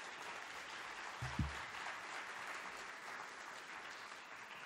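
Audience applauding after the end of a talk, a steady patter of clapping, with one brief low thump about a second in.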